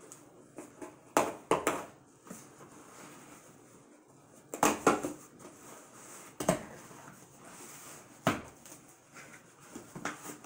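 A cardboard shipping box being opened by hand: cardboard flaps and packing crackling and rustling in several short, sharp bursts, the loudest about a second in and again near five seconds.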